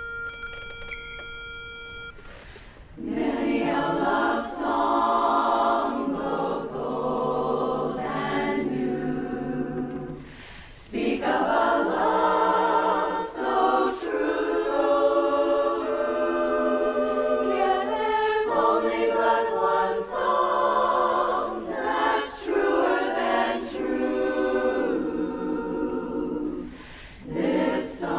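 A pitch pipe sounds one steady note for about two seconds. Then a women's barbershop chorus starts singing a cappella in close four-part harmony, with short breaks between phrases.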